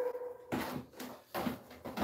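A few short knocks and scrapes of a ceramic tile being handled and set against the wall base, about four within two seconds.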